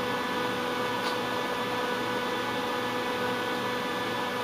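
Steady electrical hum, one constant buzzing tone with several higher overtones, unchanging in level.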